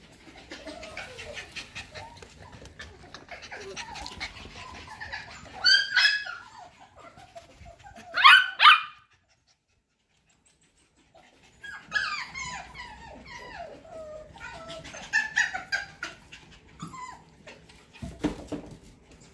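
F1B mini goldendoodle puppies whining and yipping at play, a run of short high whimpers with falling pitch and two loud yelps about six and eight seconds in. The sound drops out completely for about two seconds in the middle.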